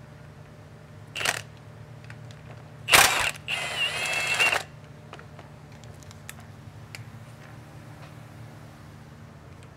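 Power tool spinning out transmission bolts on a Dodge diesel truck: a short burst about a second in, then a louder burst near three seconds that runs on with a whine for about a second and a half. Light clicks of tools and bolts follow.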